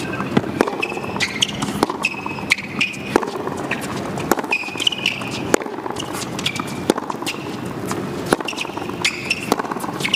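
Tennis rally on a hard court: sharp racket-on-ball hits about every second and a half, with ball bounces and short high squeaks of shoes on the court between them, over a low steady hum from the crowd.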